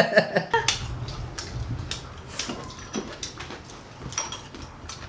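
Scattered light clicks and taps of chopsticks against a ceramic rice bowl as someone eats from it.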